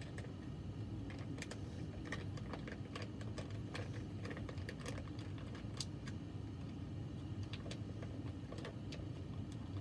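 Scattered, irregular light clicks and taps over a steady low hum.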